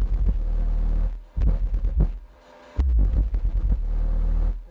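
Skar Audio VXF-12 12-inch subwoofer in a vented box playing deep bass at around 750 watts, in three long stretches broken by short drops.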